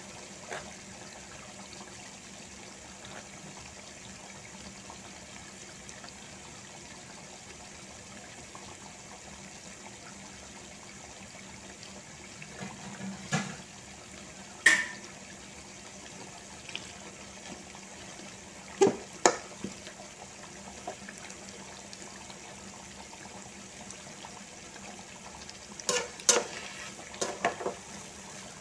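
Chicken sambal sauce simmering in a metal pot, a steady bubbling hiss with scattered sharp pops and clicks. Near the end a fork knocks against the pot several times as it stirs.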